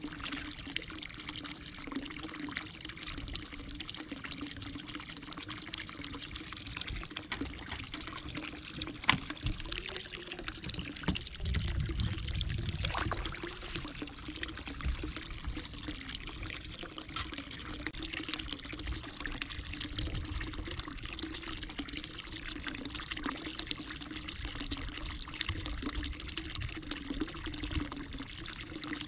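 Water pouring and trickling steadily over a low steady hum, with one sharp click about nine seconds in.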